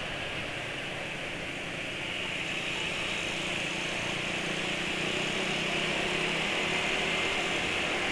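Motor scooter under way: a steady engine drone buried in wind and road noise, getting a little louder after about two seconds.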